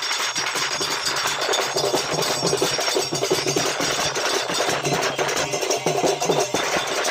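Music built on fast, dense drumming, with many rapid strikes in a steady rhythm.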